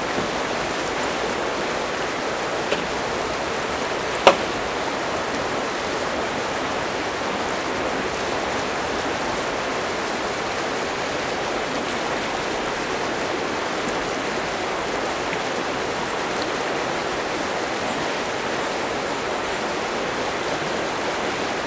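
River water flowing in a steady rush, with one sharp click about four seconds in.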